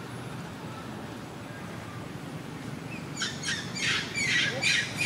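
A rapid series of harsh, squawking animal calls, about three a second, starting about three seconds in over quiet outdoor background noise.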